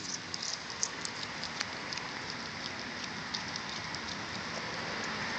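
A cat crunching and chewing a raw chicken wing: quick, sharp crackling clicks, dense over the first couple of seconds and sparser after, over a steady background hiss.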